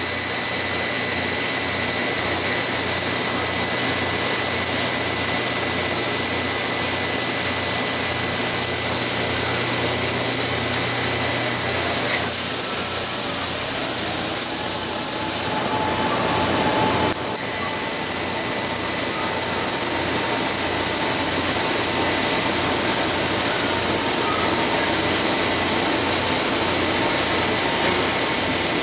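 Kern 400-watt CO2 laser cutter cutting brass sheet: a loud, steady rushing hiss from the cutting head's gas jet, over a low regular machine hum and a faint steady whine. About halfway the sound briefly changes, then drops a little in level.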